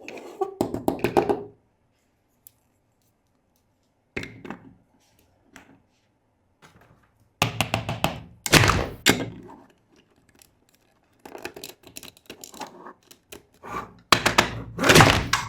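Plastic toys and packaging being handled and set down: clusters of sharp clicks, taps and knocks separated by pauses, the loudest around eight to nine seconds in and again near the end.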